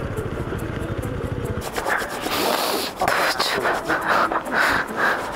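Motorcycle engine running at idle with a fast low pulsing. About two seconds in the pulsing gives way to loud, uneven rustling and scraping noise.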